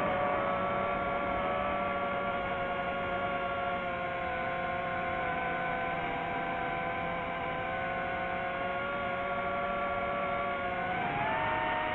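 DJI FPV drone's motors and propellers whining steadily in cruise, several pitches at once over a rushing hiss. The pitch swoops up just at the start and climbs again near the end as the throttle comes up.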